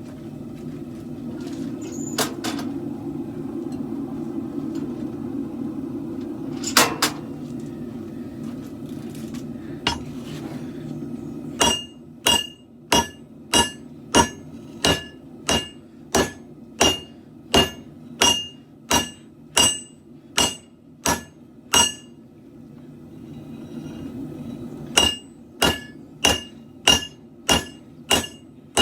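Hammer blows ringing on a steel katana blade being forged on an anvil, in an even rhythm of about one and a half strikes a second, beginning about twelve seconds in, pausing briefly, then resuming near the end. Before the hammering there is a steady low rumble with a few single knocks.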